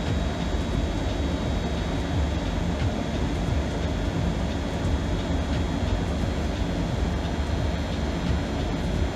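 Steady low rumble of background noise with a faint high-pitched whine that holds unchanged throughout.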